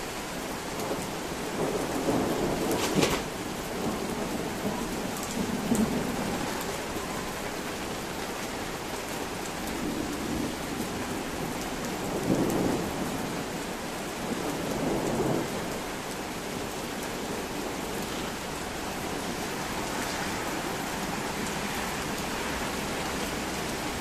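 Steady rain from a sudden thunderstorm, with low rolls of thunder swelling up several times, most strongly a few seconds in and again around the middle. There is one sharp crack about three seconds in.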